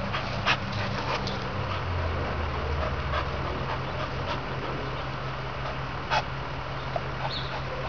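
Two short dog barks, one about half a second in and a louder one about six seconds in, over a steady low hum.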